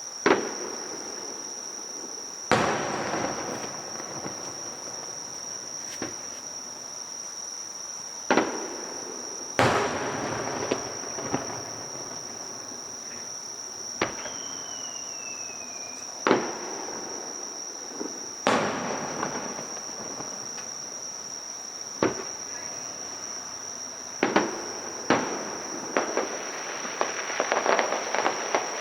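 Fireworks bursting overhead: about a dozen sharp bangs, each with a rolling echo, a short falling whistle about halfway, and a fast run of crackling near the end. A steady high-pitched insect chirring carries on underneath.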